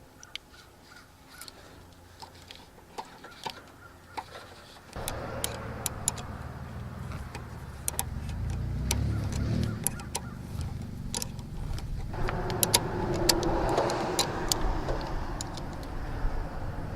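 Scattered small metal clicks and clinks of hand tools fitting a new battery terminal clamp onto the cable, over a steady low rumble that sets in about five seconds in.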